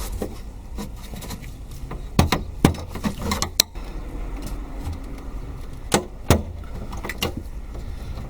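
Plastic trim and clip parts of a car's third brake light housing being handled: a series of sharp clicks and knocks, the loudest a little over two seconds in and around six seconds in, over a steady low rumble.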